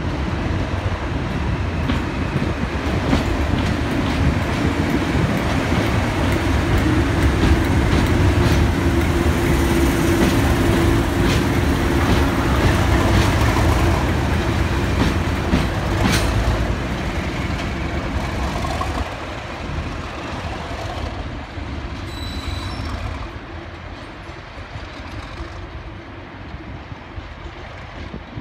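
Pair of Class 97/3 locomotives, rebuilt Class 37s with English Electric 12CSVT V12 diesel engines, pulling away and passing close by. The engines run loud with a steady low drone and a run of sharp wheel clicks, then fade as the locomotives draw away about two-thirds of the way through.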